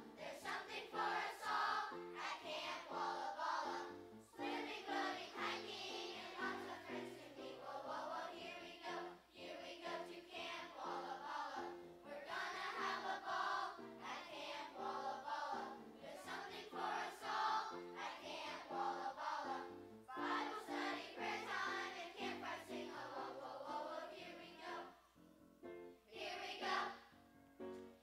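Children's choir singing in unison with instrumental accompaniment.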